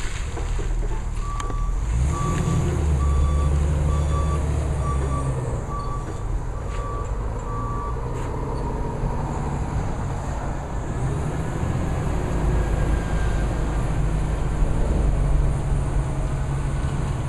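Hyster H5.0FT gas-engined counterbalance forklift running as it drives in reverse, its engine rising about two seconds in and again later. Its reversing alarm beeps about once a second for the first half, then stops.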